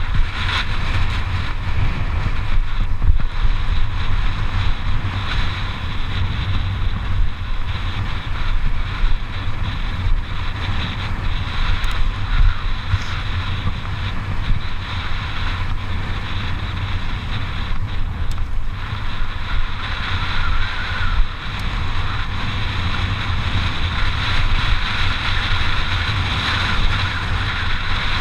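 Wind buffeting the GoPro's microphone as a mountain bike rides fast down a dirt trail, a steady rushing with heavy low rumble, mixed with the tyres rolling over loose dirt.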